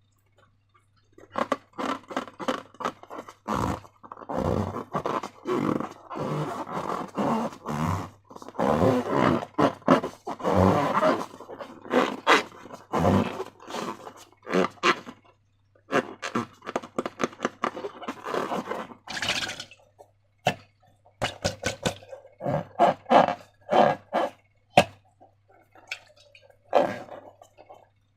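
Transparent rubber balloons and slime being handled, with irregular rubbery squeaks, rubbing and squelches. In the last third these give way to sharper separate clicks and taps. A faint low hum runs underneath.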